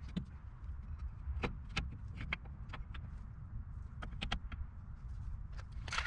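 Scattered light metallic clicks and knocks of hand work on a Jeep Wrangler's wheel hub and brake rotor, with a denser cluster of clinks near the end as parts are picked from a metal tray, over a steady low rumble.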